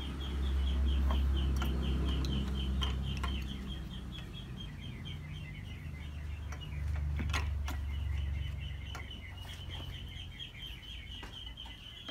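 A bird chirping steadily in quick high chirps, about four or five a second, over a low rumble that swells twice, with scattered light clicks of parts being handled.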